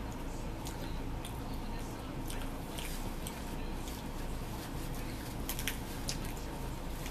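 A person biting and chewing pizza, with scattered short clicks over a steady low hum.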